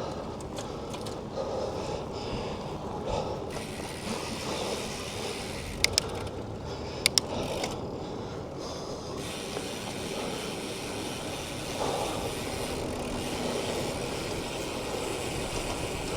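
A bicycle on the move: the rear freewheel ticks as the rider coasts, over steady road noise, with a few sharp clicks about halfway through.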